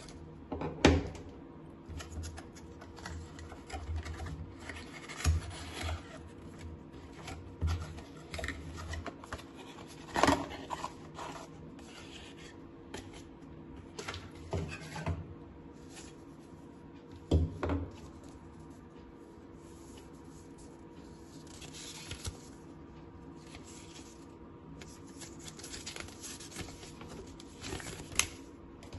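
Hands handling phone-box packaging and accessories: a clear plastic tray, a charger with its cable, and a paper leaflet rustling and rubbing, with scattered taps and knocks as pieces are picked up and put down. The sharpest knocks come about a second in, around ten seconds in and around seventeen seconds in, over a faint steady hum.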